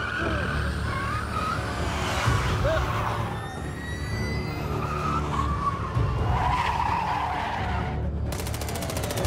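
Car-chase sound effects: tyres squealing and skidding as cars run hard, under a low pulsing film score. Near the end, a rapid, even ticking starts.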